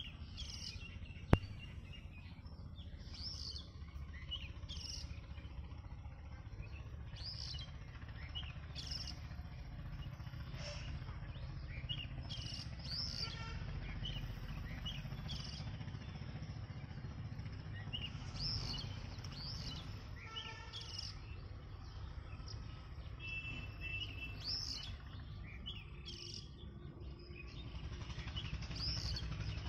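Small birds chirping: short high chirps repeating every second or so, over a low steady rumble, with one sharp click about a second in.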